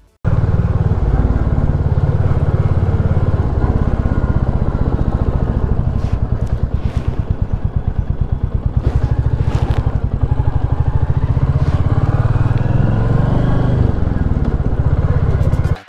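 Royal Enfield Classic 350's single-cylinder engine running under way at low city speed, heard from the rider's position as a steady stream of exhaust pulses that rises and falls a little with the throttle.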